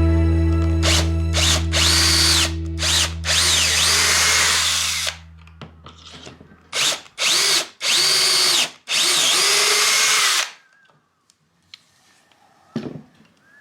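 Handheld electric drill run in a series of trigger bursts: a few short ones, then several lasting one to two seconds, its motor whine rising and falling with each pull of the trigger. Background music fades out over the first few seconds.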